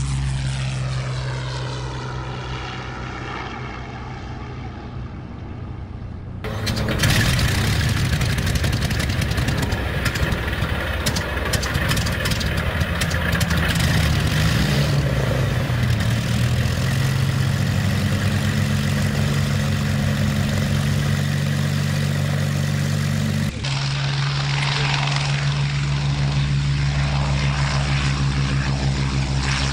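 Rolls-Royce Merlin V12 piston engines of Second World War Spitfire and Hurricane fighters running. A steady engine note gives way suddenly, about six seconds in, to a louder, rougher sound of several engines running up close, with a rise in pitch partway through. Near the end it cuts abruptly to another steady engine note.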